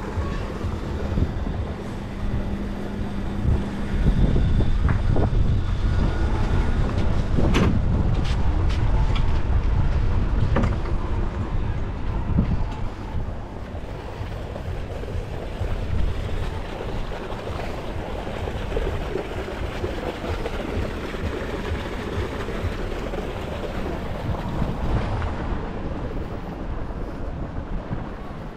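Wind buffeting the microphone: an uneven low rumbling noise, louder in the first half. A few sharp clicks come about a third of the way in.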